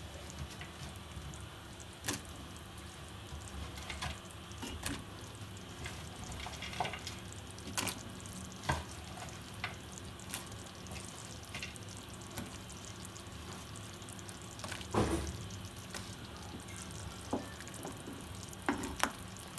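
A pot of kadhi simmering with a steady low bubbling, and scattered knocks and clinks as fried pakoras are dropped in and stirred.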